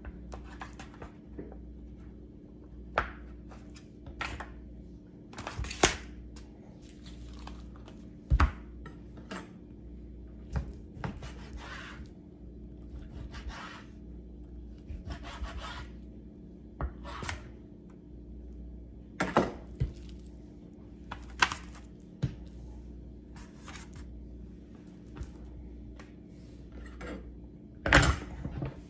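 Kitchen knife cutting raw chicken breasts on a plastic cutting board: irregular sharp knocks and clicks of the blade hitting the board, mixed with the handling of pieces into a foil pan.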